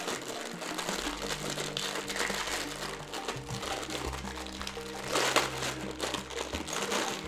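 Packaging crinkling and rustling as a small gift is unwrapped by hand, stopping just at the end, over steady background music.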